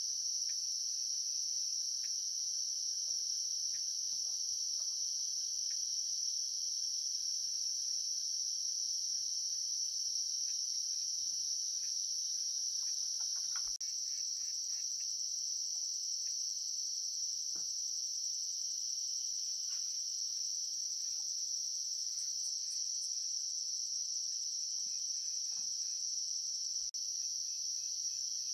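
A steady, high-pitched insect chorus that never lets up, with a few faint clicks underneath.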